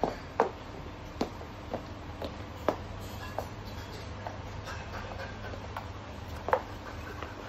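High-heeled platform sandals clacking on a wooden floorboard floor as she walks, about a dozen sharp, uneven steps, over a steady low hum.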